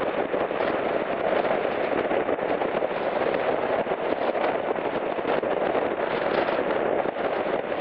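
Steady road and wind noise of a car driving at highway speed: an even rushing hiss with a fine crackle running through it.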